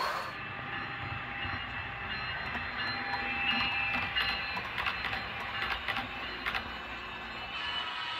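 HO scale model passenger train rolling past on the track, its wheels clicking over rail joints over a steady running hum.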